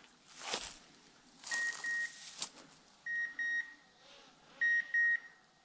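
An electronic beeper sounding in groups of three short, high, steady beeps, a group about every second and a half. A couple of soft scuffs come in the first seconds.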